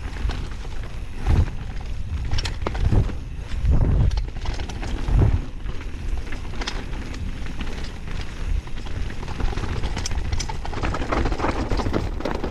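Mountain bike riding along a rough dirt forest trail: steady tyre and wind noise with low rumble, with the bike thudding and rattling over bumps several times, the heaviest knocks about one, four and five seconds in, and lighter clicks and ticks later on.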